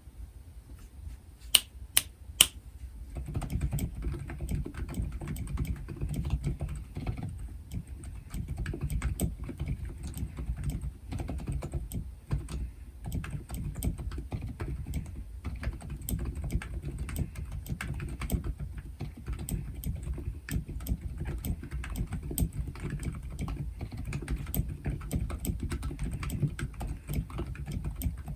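Typing on a Womier K66 mechanical keyboard fitted with Silent Alpaca linear switches, lubed with Krytox and filmed, on a desk mat: a continuous stream of dull, low keystrokes. Three sharp clicks come just before the typing starts about three seconds in.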